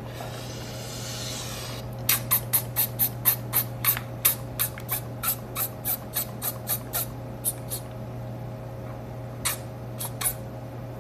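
A brief rushing hiss, then a fast run of sharp clicks, about four a second for some five seconds, with a few more scattered clicks near the end, over a steady low hum.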